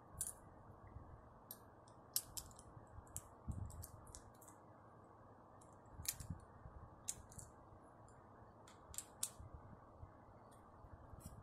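Irregular small metallic clicks and taps of a screwdriver and a small wrench working a nut and screw tight on a capacitor end cap.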